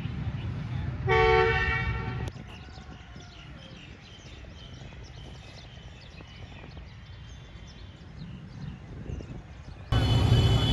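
A horn sounds once for about a second, a steady two-note chord. After a stretch of quieter outdoor ambience, a diesel locomotive's engine comes in loudly near the end.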